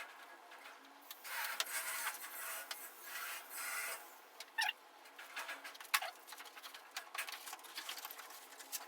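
Rustling and rubbing of packaging being handled, with scattered sharp clicks and taps; a louder stretch of rustling runs from about one to four seconds in.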